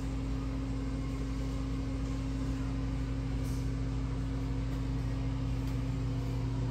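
Bathroom exhaust fan running, a steady low hum.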